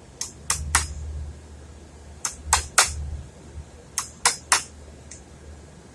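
A hammer tapping a 1 1/4-inch wood chisel into the edge of a wooden door to cut a hinge mortise: three quick strikes in a row, repeated three times, then one lighter tap near the end.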